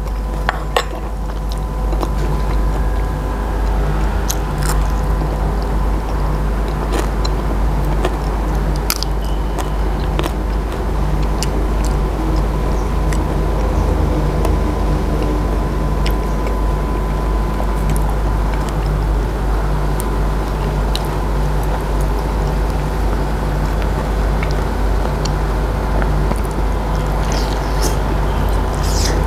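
A person chewing raw beef koi with mouth sounds and scattered short clicks, over a loud, steady low engine drone with a constant hum.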